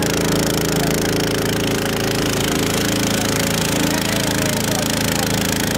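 Sonali 170FD single-cylinder four-stroke petrol long-tail boat engine (7.5 hp, 208 cc) running steadily at a constant speed while propelling the boat.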